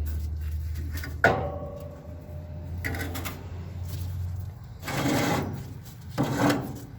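Steel grill flavorizer bars being handled: one sharp metal clank with a brief ring a little over a second in, then several scraping, rattling bursts. A low hum underneath stops about halfway through.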